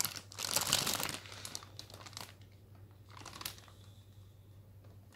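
Clear plastic bag around a gaming headset crinkling as it is handled, loudest in the first second, then softer crinkles about two and three and a half seconds in.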